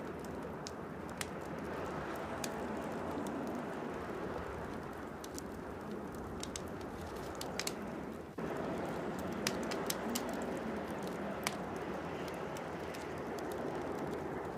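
Small wood campfire crackling, with sharp scattered pops over a steady hiss. The background steps up a little in loudness about eight seconds in.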